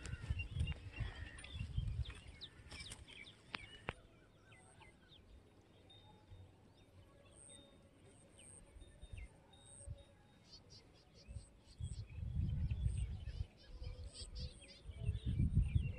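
Faint outdoor ambience: small birds chirping now and then, with bursts of low rumble near the start, about twelve seconds in and just before the end.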